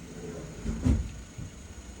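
A single dull thump about a second in, over a low steady rumble.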